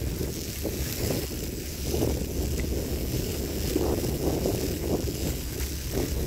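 Bicycle riding over a leaf-covered dirt track: tyres rolling and crunching through dry leaves, with irregular bumps. Wind buffets the microphone, adding a steady low rumble.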